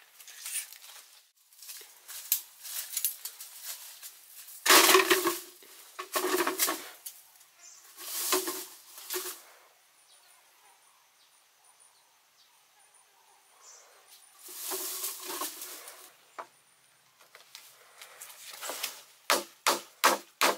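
Bursts of rustling and scuffing in dry soil and leaf litter, loudest around the middle. Near the end, a sickle knife starts chopping into a green bamboo pole in sharp, evenly spaced strokes, about two a second.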